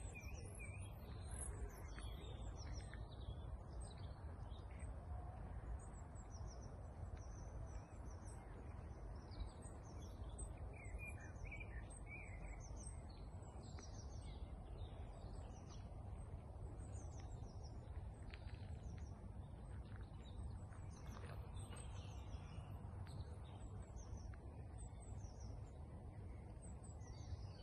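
Several small birds chirping and singing on and off throughout, over a steady low background rumble.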